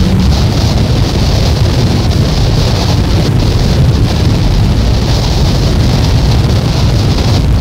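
A loud, steady wall of dense rumbling noise with a hiss on top, without beat, melody or change: a noise-music track from a cassette album.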